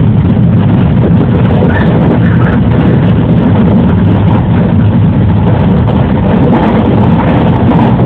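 Running noise of a JR 113-series electric train heard from inside its cab: a loud, steady low-pitched din of traction motors and wheels on the rails while under way.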